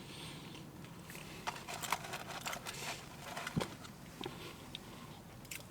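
Quiet eating sounds: scattered small crackles and clicks of chewing chips and handling the food packaging, with a soft knock about three and a half seconds in.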